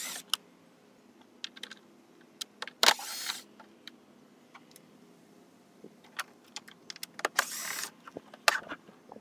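Bosch cordless driver with a T15 Torx bit briefly spinning screws out of a plastic mirror shroud: two short whirs about four seconds apart. Small clicks of the bit and the plastic come in between.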